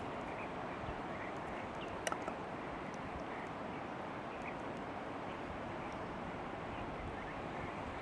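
Steady rushing noise of a river flowing, with a single sharp click about two seconds in.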